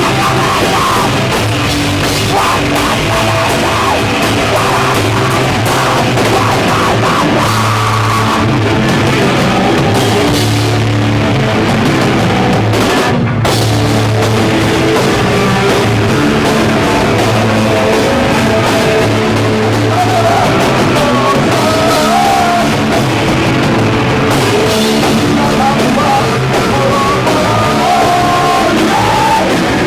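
Live hardcore punk band playing loud and fast on drum kit and amplified guitar and bass.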